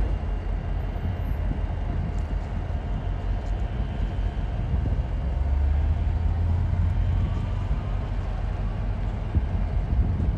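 Diesel locomotive moving slowly, its engine running with a steady low hum that grows a little louder about halfway through.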